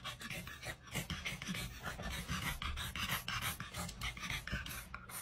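A dog panting in quick, even breaths, from about a second in.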